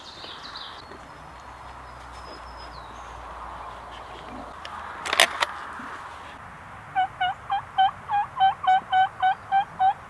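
Turkey calling: a run of about eleven short, evenly spaced notes, roughly four a second, starting about seven seconds in. A couple of sharp clicks come a little after halfway.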